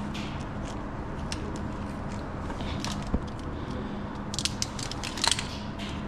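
Wires and tape being handled while a wiring harness is taped up: scattered crinkly clicks and crackles, with one sharp click just after three seconds and a denser run of crackles about four to five seconds in.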